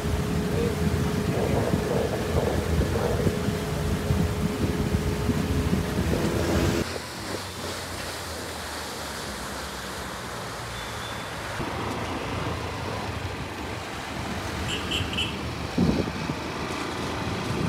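Passenger boat's engine running steadily with wind buffeting the microphone, heard from on board. About seven seconds in, it cuts off suddenly to a quieter, even wash of wind and water.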